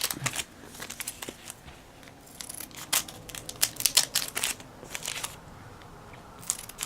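Foil booster pack wrapper crinkling and crackling as a Pokémon card pack is opened and handled, in a run of sharp irregular clicks with brief quieter pauses.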